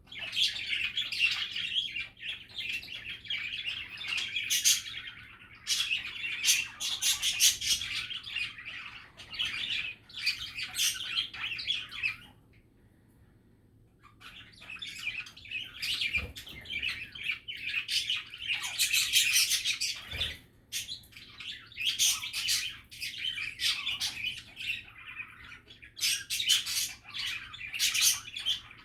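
Budgerigars chattering and warbling: a dense stream of rapid chirps, clicks and tweets, with a break of about two seconds partway through.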